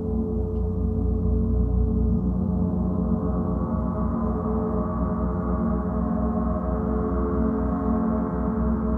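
Gong being played with sustained rolling strokes, a dense steady wash of many overlapping ringing tones with a pulsing low hum.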